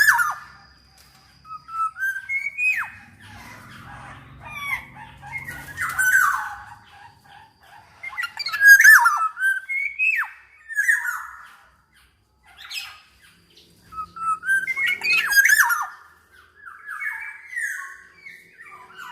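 Black-naped oriole singing: a string of short whistled phrases with sliding notes, mixed with harsher, rasping calls, repeated every second or two with a brief pause part-way through.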